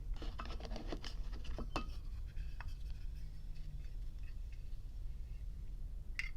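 Handling noise from a Zippo lighter: a cluster of light clicks and rubbing in the first two seconds, a few faint ticks, and one sharper click near the end, over a low steady hum.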